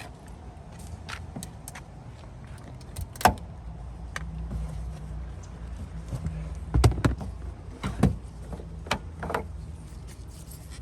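Irregular sharp clicks and knocks of hard plastic parts being handled, as LED turn-signal bulbs and their sockets are worked at a car's tail light. Underneath is a low steady rumble.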